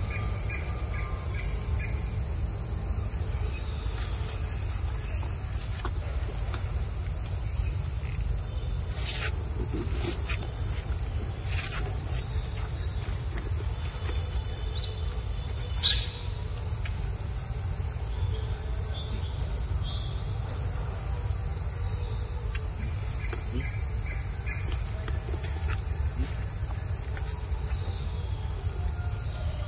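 A steady, high-pitched drone of insects, with a low rumble underneath. A few faint chirps come through, and there is one sharp click about 16 seconds in.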